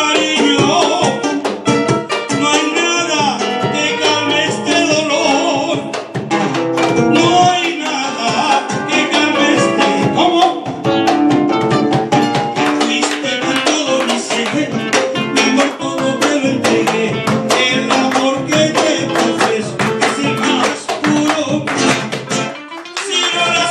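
Live music: a man singing into a microphone over an acoustic guitar, with a beat of sharp percussive strikes throughout and a short break near the end.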